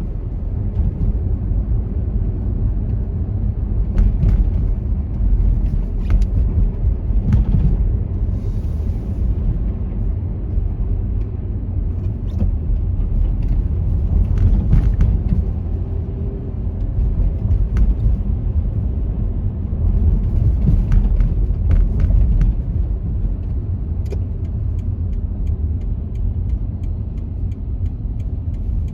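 A car being driven, giving a steady low road rumble with scattered short clicks and knocks.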